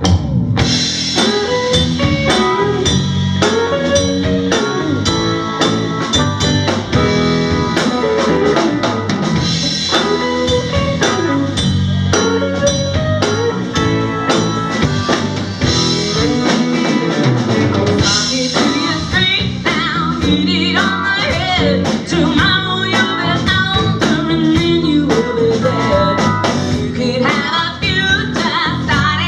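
Live band kicking into a bluesy song, with drum kit and guitar playing at full volume. The music starts abruptly at the beginning, just after a count-in.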